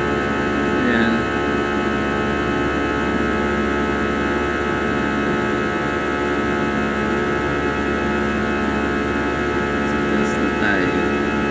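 Steady cabin drone of an airliner in cruise flight: engine noise holding many fixed tones without change. Two brief gliding sounds cut in about a second in and near the end.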